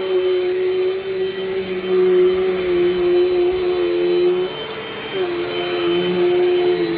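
Dirt Devil Dynamite Plus vacuum cleaner running with a steady motor whine over the rush of air. The whine breaks and dips in pitch briefly about four and a half seconds in, then steadies again.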